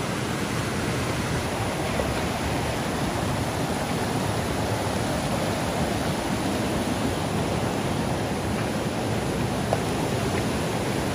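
Fast-flowing mountain stream rushing over rocks and boulders: a steady, unbroken wash of white-water noise.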